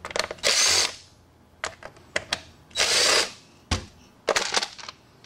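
Cordless drill-driver fitted with a T27 Torx bit backing out the top-cover screws of a Stihl MS251C chainsaw, running in short bursts about half a second long with a faint rising whine. Sharp clicks of the bit and screws come in between.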